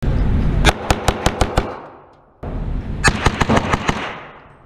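Rapid 9mm gunfire on an indoor range, each shot ringing off the walls. First comes a fast string of about six shots from a Glock 22 pistol converted to 9mm. After a break there is another fast string of about seven shots from a 16-inch AR-9 pistol-caliber carbine.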